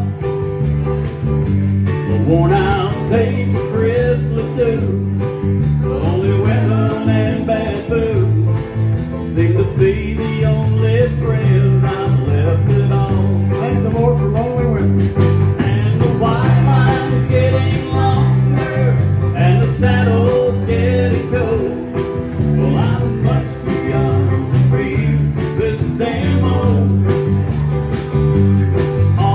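Live country band playing with electric bass, acoustic guitar and keyboard over a steady beat.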